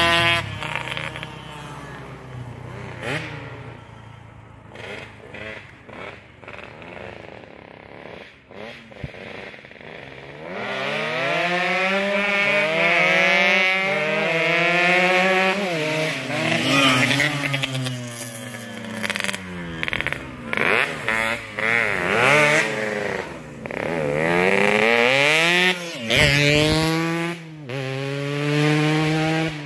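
Yamaha RX-King two-stroke motorcycles ridden hard: the engine note climbs and falls as they rev through the gears and pass. Fainter for about the first ten seconds, then loud.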